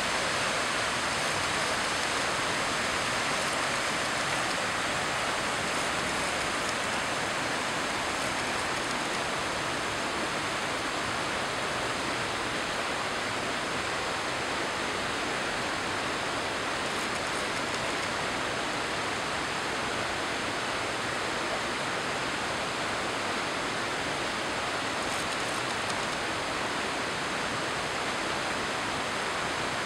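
Daisen Falls' waterfall rushing steadily, an even, unbroken roar of falling water with no pauses or changes.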